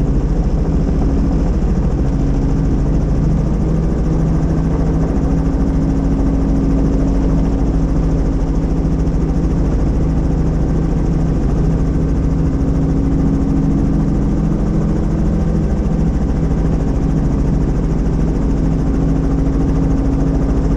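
Helicopter engine and rotor running steadily: a loud, even drone with a fast beat from the rotor blades.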